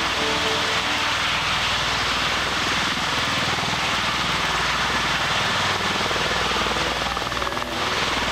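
Bell Boeing V-22 Osprey prototype tiltrotor hovering with its two proprotors tilted up, a steady loud roar of its twin turboshaft engines and rotors with a fast, even beating from the blades. It is holding a steady-state hover at about 79 percent torque.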